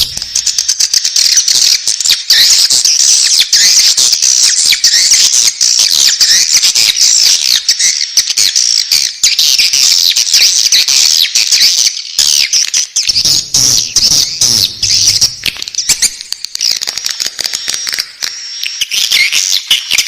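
Swiftlet chicks calling in the nest: a dense, continuous mass of many overlapping high-pitched chirps and trills.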